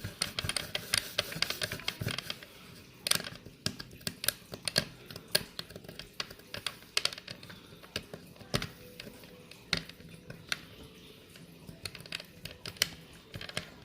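Light, irregular clicks and scratches of fingers or a tool picking at old decal and tape on a vintage Kenner X-Wing's plastic body piece, with the hard plastic being handled.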